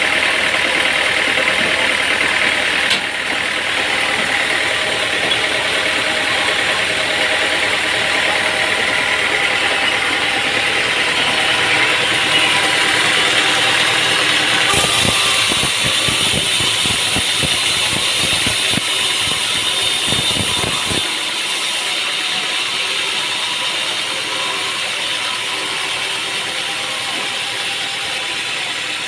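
Sawmill machinery running steadily with a whine. About halfway through, a run of rapid rattling knocks lasts some six seconds, then stops.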